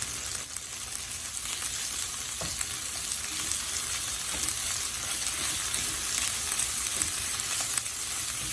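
Eggplant, onion and green chilies sizzling in oil in a pan, with ginger-garlic paste, salt and turmeric just added and being fried in. A spatula stirring gives a few light scrapes and taps.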